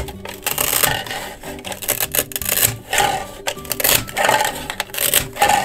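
Toy plastic pizza being cut with a plastic knife: several short rasping tears as the hook-and-loop-joined slices are pulled apart.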